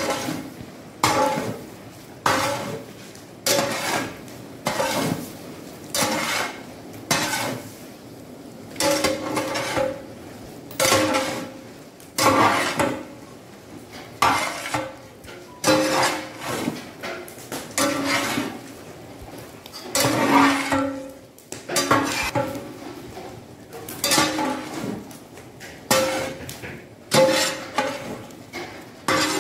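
A long-handled metal ladle scraping and knocking against a large metal cooking pot, about once a second, many strokes leaving a short ringing note. The strokes come as a big batch of chopped avial vegetables is stirred while it steams.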